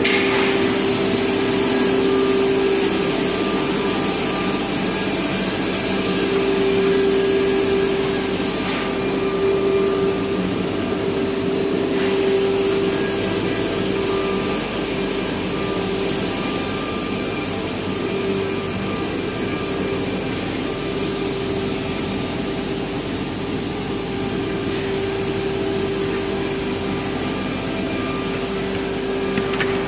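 Automatic edge banding machine running: a steady motor hum under a broad high hiss from its working units, the hiss easing off twice for a few seconds.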